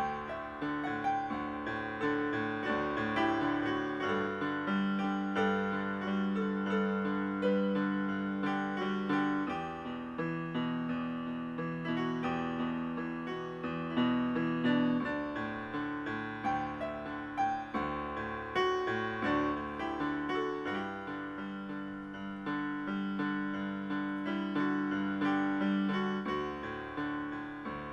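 Background piano music: a gentle solo piano piece of held, overlapping notes and chords.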